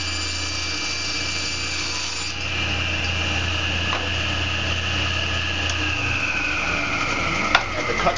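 Table saw with a 10-inch blade running and ripping a board of sheet material fed along the fence: a steady motor hum with a high whine from the blade in the cut. The whine drops a little in pitch near the end, and there is a sharp click shortly before the end.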